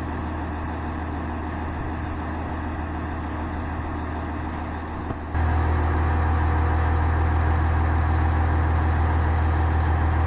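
Mobile crane's engine running steadily with a deep, even hum while it lowers its load. About five seconds in it gets suddenly louder and fuller.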